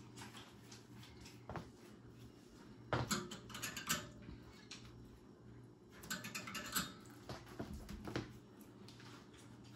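Scattered light clicks and knocks of small objects being handled, in a cluster about three seconds in and again around six to seven seconds, over a low steady hum.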